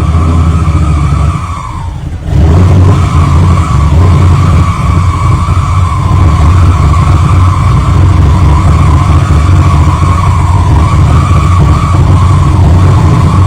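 Freshly rebuilt, cammed LS1 V8 of a 2004 Pontiac GTO running loudly. It drops in level briefly about a second and a half in, then comes back abruptly and runs on steadily.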